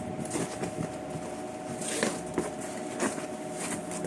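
Light clicks, knocks and rustling of parts and packaging being handled, a few sharper taps about half a second, two, three and three and a half seconds in, over a steady faint hum.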